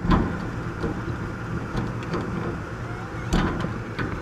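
A wire's push-on connector clicking and scraping as it is worked off an air conditioner capacitor's terminal, a few sharp clicks with the clearest near the end, over a steady low hum.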